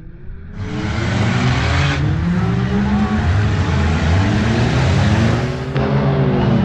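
Several autocross cars' engines revving on a dirt track, their pitches rising and falling as they accelerate and lift. A steady rushing noise joins them about half a second in and drops away near the end.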